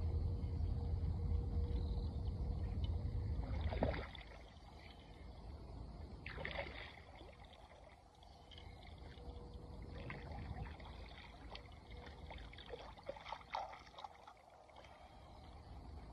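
A low rumble that stops about four seconds in, then a few light splashes of water, spread out.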